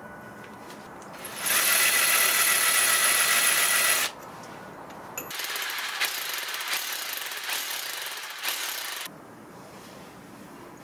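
Hand-held hammer drill boring into the edge of a granite millstone, in two bursts of a few seconds each with a short pause between; the second burst carries a few small knocks.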